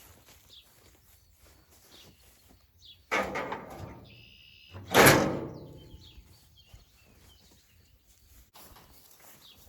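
Two bangs about two seconds apart, the second louder and fading out with a ringing tail, with faint bird chirps behind them.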